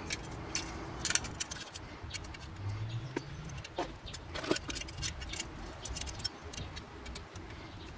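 Small, irregular metal clicks and clinks as a 5 mm Allen key turns and seats the bolts on a molle panel's metal mounting bracket, snugging them down.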